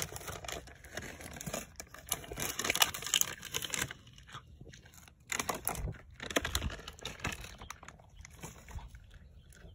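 Domestic cat crunching dry cat treats close up: irregular crisp crunches in two spells with a short pause around the middle, tailing off near the end.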